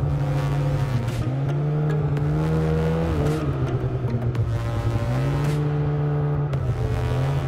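Polaris 800 two-stroke snowmobile engine running hard in deep powder, its pitch dipping and climbing back three times as the throttle is eased and reapplied.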